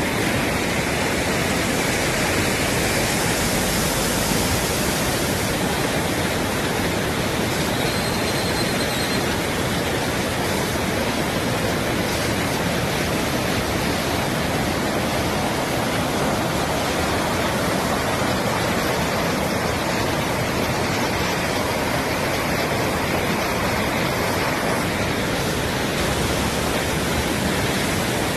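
Floodwater rushing and churning over a paved approach, a steady, unbroken noise.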